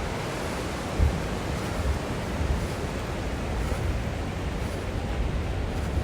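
Steady rushing of ocean surf mixed with wind buffeting the microphone, with irregular low thumps, the strongest about a second in.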